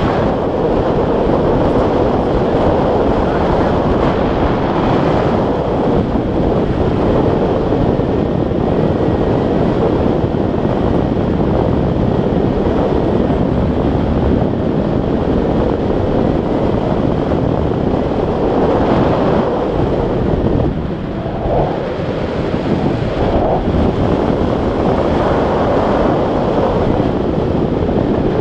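Steady, loud wind rushing over the camera's microphone as it flies with a tandem paraglider, easing slightly about three quarters of the way through.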